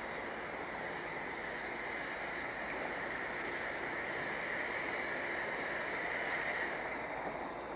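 Steady hiss of steam escaping from the Kitson & Co 0-6-0T steam locomotive A.No.5 under steam test, swelling to its loudest about six seconds in and easing near the end.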